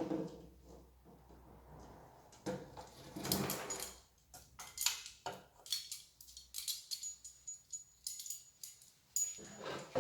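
Handling noises: a knock, a stretch of rustling, then a run of small clicks and taps as packaging and parts are moved about.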